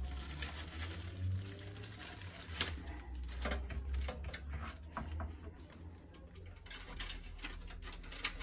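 Handling noise as an NZXT Kraken 360 radiator with fans is manoeuvred into a metal PC case: plastic wrapping rustling, with scattered light clicks and knocks of the radiator and fan frames against the case.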